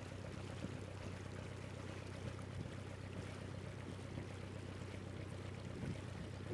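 A boat's engine droning steadily at a low pitch, with water washing and splashing around the hull.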